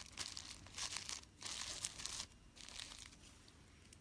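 Packaging crinkling as it is handled, in two strong bursts over the first two seconds or so, then a few fainter rustles.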